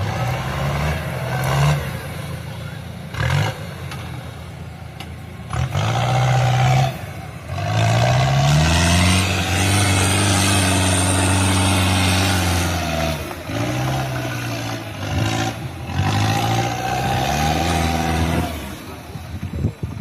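Modified off-road 4x4's engine revving hard under load, in repeated surges whose pitch rises and falls. The longest and loudest is a rising, held rev about halfway through.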